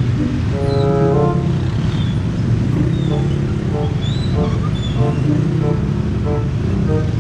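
Steady engine rumble of a large vehicle, with a tune of short pitched tones playing over it: a long held note about a second in, then a quick run of notes in the second half.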